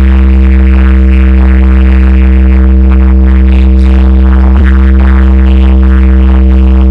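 DJ sound system at a sound check, playing very loud electronic music over a steady, unbroken deep bass tone, with a brief click about two-thirds through.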